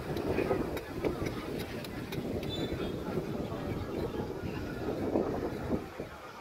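Distant rumble of a Saudi Airlines jet airliner's engines at takeoff thrust as it climbs away, the noise dropping off near the end.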